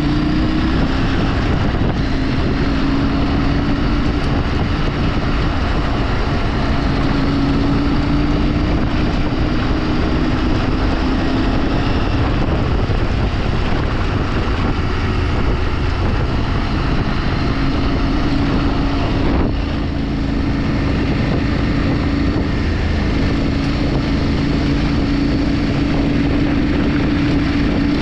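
Motorcycle engine running at a steady cruising speed, its pitch drifting slightly, with wind noise on the microphone. It eases off briefly about two-thirds of the way through, then picks up again.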